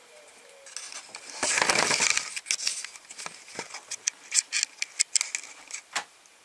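A handheld cigarette lighter being struck again and again: a run of sharp clicks at an uneven pace until it lights. About a second and a half in, a brief loud rush of noise comes before the clicks.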